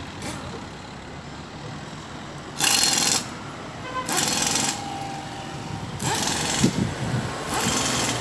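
A wet polishing wipe rubbed hard along the edge of a sanded plastic headlight lens, in about four scrubbing strokes of half a second to a second each, starting a few seconds in.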